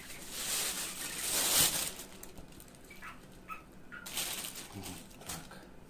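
A plastic bag rustling and crinkling while being handled, in two bursts: a longer one in the first two seconds and a shorter one about four seconds in.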